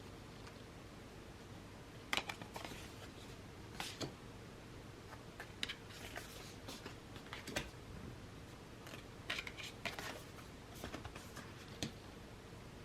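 Oracle cards being handled and flipped through: scattered light clicks and brief rustles at irregular intervals, a second or two apart.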